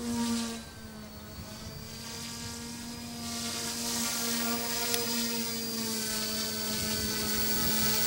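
OMP Hobby M1 mini RC helicopter in flight, its dual brushless direct-drive motors and rotors making a steady buzzing whine with a thin high tone above it. It grows louder from about three seconds in as the helicopter comes down close and hovers just above the grass.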